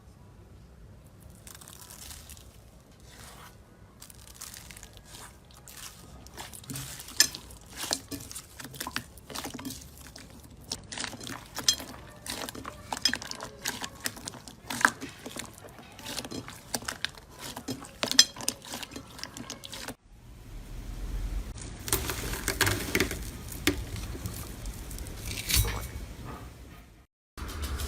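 Slime being squeezed and pressed by hand, making many irregular wet clicks and crackles. After an abrupt cut about two-thirds of the way in, the squishing is louder and denser.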